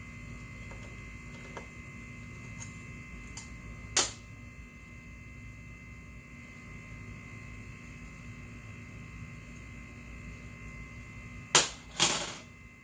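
Sharp metallic clicks of hand tools working on the scooter's rear-wheel hardware: two knocks together a few seconds in and two more near the end, over a steady electrical hum.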